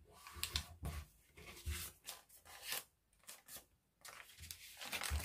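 Sheet of origami paper being folded and creased by hand: short papery rustles and rubs as fingers press along the fold, with a brief pause about three seconds in.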